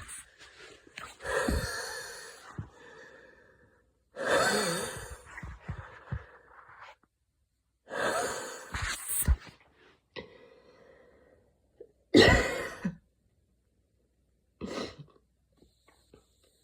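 A person wheezing in short bouts during a mild asthma attack brought on by running in cold air. There are a few long, wheezy breaths of two to three seconds each, then two shorter, sharper bursts near the end.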